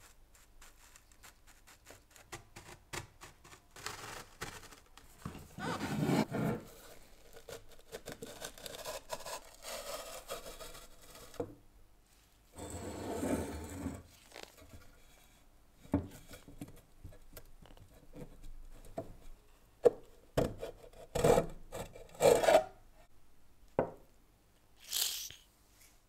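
Corroded metal parts of a giant table lighter being pried and pulled apart by hand: scraping and rubbing of metal on metal, with several sharp knocks near the end.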